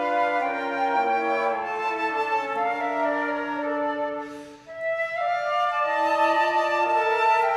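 Flute choir playing overlapping held notes in close harmony. A little past halfway the sound thins out almost completely, with a brief breathy rush of air, before the flutes come back in.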